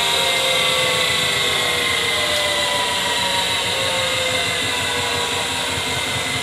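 Miele W 425 front-loading washing machine spinning at high speed: a steady motor and drum whine made of several tones that slowly fall in pitch while getting slightly quieter, as the spin begins to wind down.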